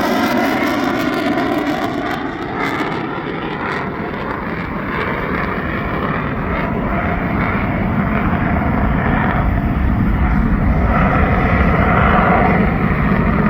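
Jet noise from a Boeing F/A-18F Super Hornet's twin General Electric F414 afterburning turbofans as the fighter flies past. It is a steady, heavy rush, with a wavering, phasing sweep in the first couple of seconds, and it grows a little louder toward the end.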